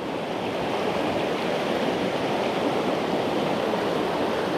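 A river rushing steadily.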